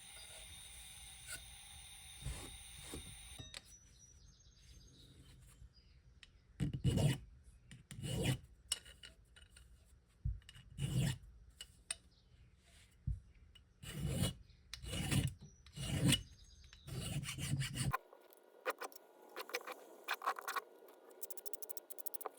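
A hand tool rasping against a workpiece in separate back-and-forth strokes, roughly one a second. It switches to quicker, lighter strokes in the last few seconds.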